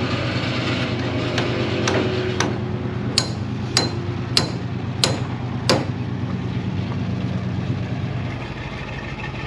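A truck engine runs steadily while a tow-truck boom lifts a cab in a sling. A series of about eight sharp knocks comes roughly every half second in the first six seconds, and the engine note changes near the end.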